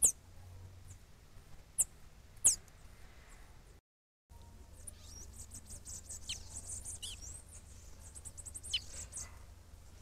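Songbirds calling: three sharp, high, quickly down-slurred call notes in the first few seconds, then, after a brief dropout, a rapid run of high twittering chirps with a few down-slurred notes.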